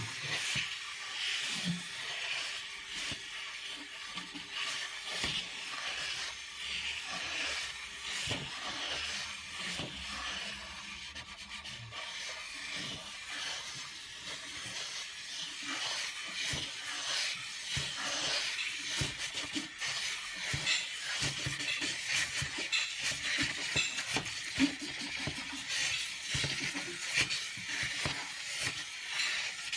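Dark drawing sticks scratching and rubbing on paper in quick looping strokes, both hands scribbling at once, a continuous dry rasp that grows a little louder and busier in the second half.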